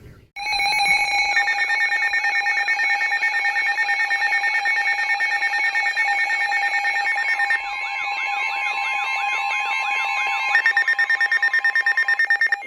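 Weather alert receiver's electronic alarm: several steady tones pulsing rapidly. A warbling, siren-like tone joins about halfway, and the pulsing grows stronger near the end, announcing an incoming flash flood warning.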